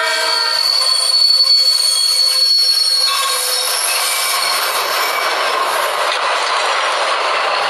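Diesel train: the horn cuts off about half a second in, a high steady squeal of wheels on the rails carries on for about three seconds, then gives way to the rushing noise of the train rolling past.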